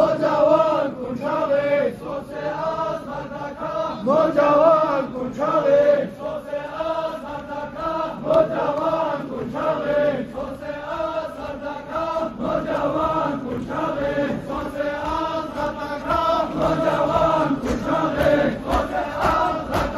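A crowd of Shia men chanting a mourning lament together in a procession, a steady melodic chant, with regular sharp beats that grow more prominent near the end.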